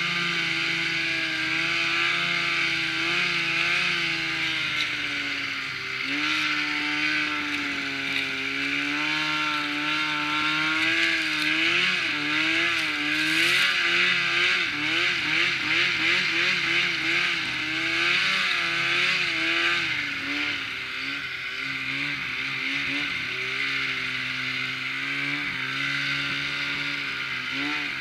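Snowmobile engine running under way, its pitch rising and falling with the throttle and wavering quickly for several seconds around the middle.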